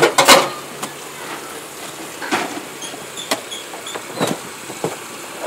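Knocks and clatters of junk being handled, with a loud cluster of hits right at the start and then single knocks about once a second.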